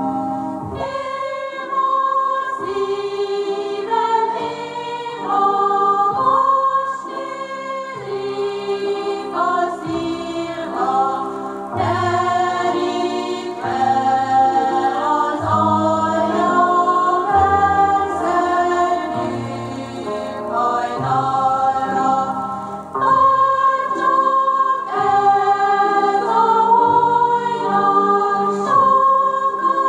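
Recorded Hungarian folk dance music from Somogy: voices singing a karikázó tune together, backed by a folk orchestra.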